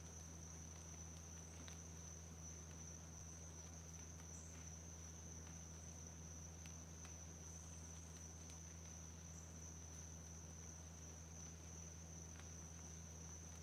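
Faint, steady high-pitched insect chorus over a low steady hum, with a few soft ticks scattered through.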